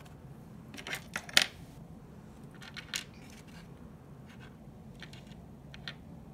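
Small metal charms being handled in a wooden tray, clinking as they knock together and against the tray. A quick cluster of clinks comes about a second in and holds the loudest one. Another comes at about three seconds, and a few fainter ones follow later.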